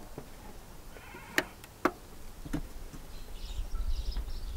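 Two sharp clicks about half a second apart as a portable LG CD boombox is handled, then a faint low rumble that swells near the end.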